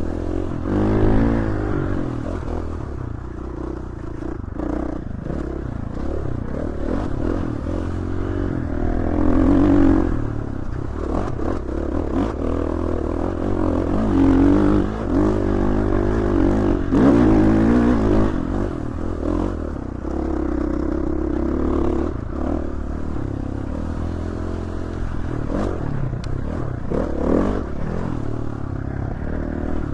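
Dirt bike engine running under load on a trail, its pitch rising and falling repeatedly as the throttle is opened and closed, with rattling and scraping of the bike over rough ground.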